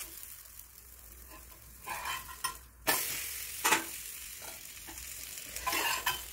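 Ragi rotti sizzling on a hot iron tawa. The sizzle jumps louder about three seconds in and carries on steadily, with a few short knocks and a metal spatula scraping under the rotti near the end.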